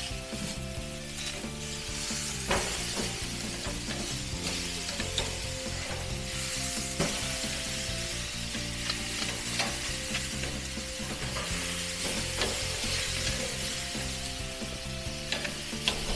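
T-bone steaks sizzling steadily on a hot gas grill's grates, with a few sharp clicks and scrapes of metal tongs against the grate as the steaks are turned.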